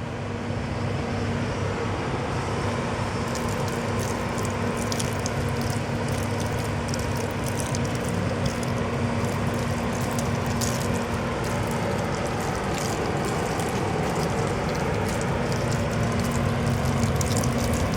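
A motor-driven machine running steadily with a constant hum and faint ticking, switched on and left running for the whole stretch.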